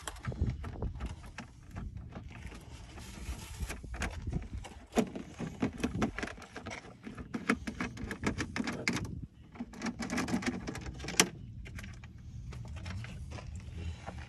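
Hands handling a Pro Boat Sonic Wake 36 RC boat's plastic hull and canopy hatch: scattered clicks, taps and knocks as the hatch is worked open, some sharper than others.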